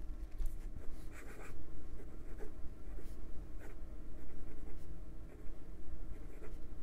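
A Jinhao 100 Centennial fountain pen's medium steel nib writing on lined notebook paper: short, irregular scratching strokes of handwriting.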